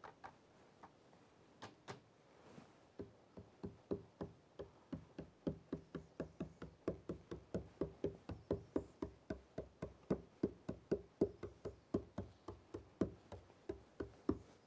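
A stiff brush stippling acrylic paint onto a canvas: a long, even run of dull taps, about three or four a second, starting a few seconds in. A few scattered clicks come before the run.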